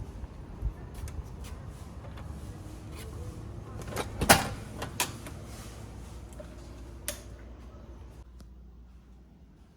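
A door being opened and shut: a series of clicks and knocks, the loudest about four seconds in. The steady background hiss drops away near the end.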